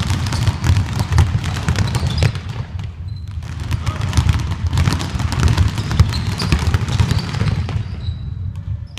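Many basketballs dribbled at once on a sports-hall floor: a dense, irregular run of overlapping bounces, echoing in the large gym.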